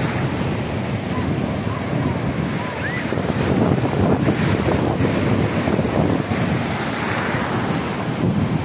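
Ocean surf breaking on the beach at a strong high tide, with wind buffeting the microphone.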